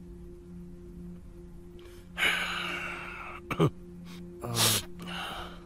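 A long breathy sigh about two seconds in, a short sharp sound, then a second, shorter breathy sound, over a low steady background tone.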